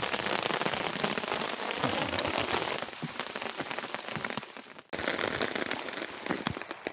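Hail falling, a dense pattering of hailstones clicking on a wooden boardwalk. It cuts out suddenly for a moment about five seconds in, then resumes.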